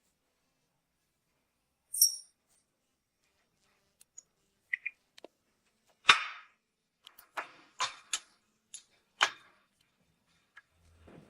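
Scattered sharp clicks and knocks, about a dozen, with dead silence between them; the loudest is about six seconds in and several follow quickly between seven and nine seconds.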